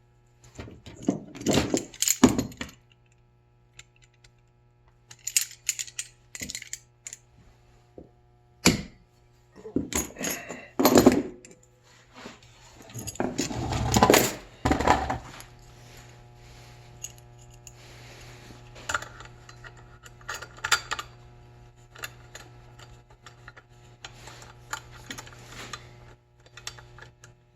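Small metal parts clinking and clattering as they are handled and fitted together: a homemade stainless steel drive piece being tried on the threaded shaft of an ice maker's auger drive. There is a low steady hum underneath.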